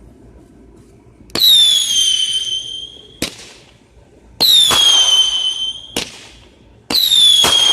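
Whistling fireworks firing three shots about three seconds apart. Each shot opens with a launch thump, then a high whistle that drops in pitch and holds steady. The first two whistles end in a sharp bang.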